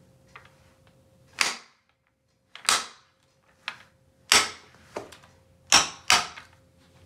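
A hammer strikes the bottom of an office chair's gas-lift cylinder at the hub of the aluminium five-star base, knocking the cylinder free of the base. There are about seven sharp, irregularly spaced blows, five of them loud.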